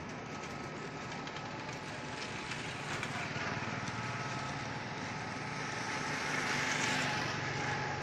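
An engine running steadily, with a rushing noise that swells about six to seven seconds in and then fades.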